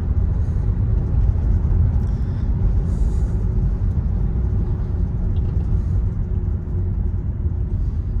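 Kia Soul driving, heard from inside the cabin: a steady low rumble of engine and tyres on a bumpy road.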